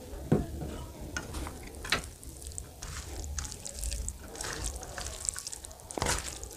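Mutton curry gravy poured over rice on a steel plate, then a bare hand mixing the rice and gravy with wet squishing and squelching. There are a few sharp knocks, the loudest about a third of a second in, others near two and six seconds.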